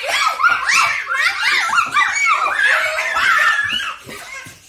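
Young children squealing and laughing, overlapping high-pitched shrieks with rapidly rising and falling pitch, dropping off briefly near the end.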